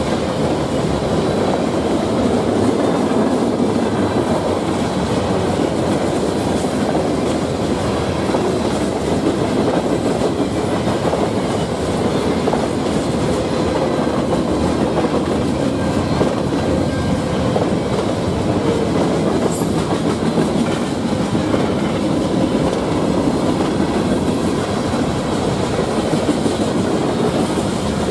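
A freight train's cars rolling past close by, a steady loud rumble with the clickety-clack of wheels running over the rails.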